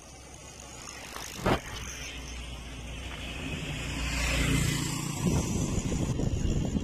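A motor vehicle passes on the road: engine and tyre noise swells to a peak about four and a half seconds in, then fades. A sharp knock comes about a second and a half in, and wind buffets the microphone once the bicycle starts rolling near the end.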